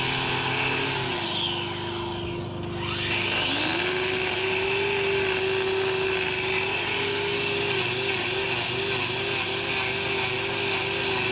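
Angle grinder with a hoof-trimming disc running and grinding down the horn of a cow's overgrown claw. Its whine drops away about three seconds in and spins back up, and over the last few seconds the pitch wobbles up and down repeatedly.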